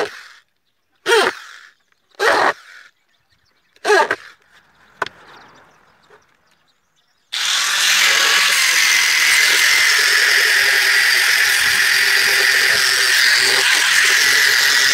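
A corded electric drill boring into wooden boards in four short bursts. After a short pause, about seven seconds in, an angle grinder starts and runs steadily against the wood with a high whine.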